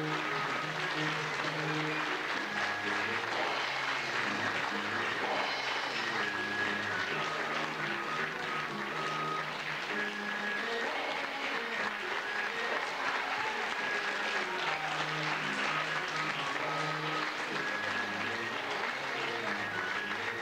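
Audience applauding steadily through the curtain call, with the production's music playing underneath in a repeating pattern of low notes.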